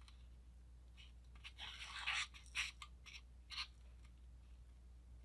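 Faint scraping and light clicks of a plastic fork working a clay pretzel through a thick, wet caulk mixture in a foam plate: a short scrape about two seconds in, then a few light clicks.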